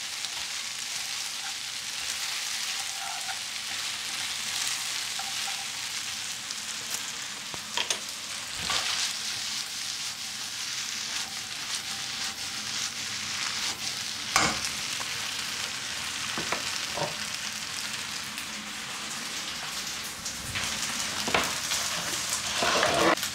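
Sauced flat rice noodles and beef sizzling in a frying pan as they are stir-fried: a steady frying hiss, broken now and then by a few sharp knocks of stirring.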